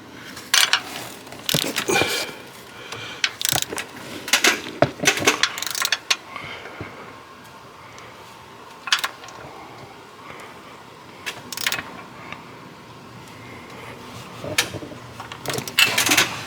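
Ratchet wrench clicking in short runs as the water pump bolts are tightened one after another, with pauses between bolts and the odd clink of metal.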